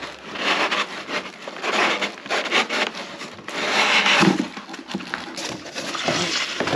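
Moulded pulp packaging tray scraping and rubbing against the inside of a cardboard box as it is worked out by hand, in a run of irregular rasping scrapes, loudest about four seconds in.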